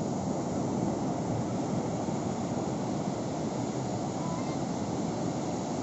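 Steady noise of rough, storm-driven surf breaking and washing up the beach, with wind on the microphone.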